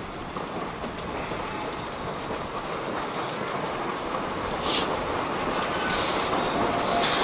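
Narrow-gauge steam locomotive hauling a short train of wagons, approaching and growing steadily louder as its wheels rumble and clatter on the track. There are brief hisses of steam about five and six seconds in, then steady loud hissing from about seven seconds.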